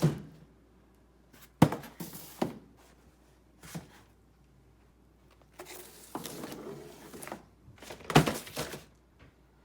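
A handful of sharp knocks and thuds, the loudest about one and a half seconds in and near the end, with a couple of seconds of rustling or scraping in between, as objects are handled and set down in a small room.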